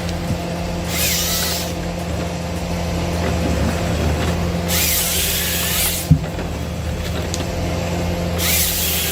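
Ponsse Ergo forestry harvester's diesel engine running steadily, with three bursts of about a second each from the harvester head's saw cutting through a log, about 1, 5 and 8.5 seconds in. A single sharp knock comes around 6 seconds in.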